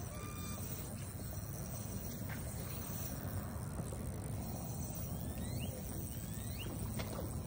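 Outdoor lakeside ambience: a steady low rumble and hiss, with a few short rising chirps about five to seven seconds in.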